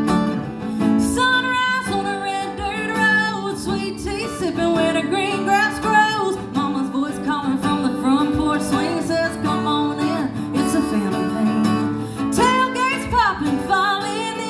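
Acoustic guitar strumming a song, with a woman's voice singing a wavering melody over it from about a second in.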